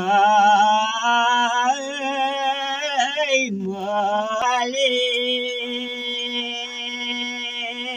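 Unaccompanied Nepali village folk singing by an elderly man's voice, drawn out in long held notes with a wavering pitch. The voice breaks off briefly about three and a half seconds in, then carries on in a long steady note.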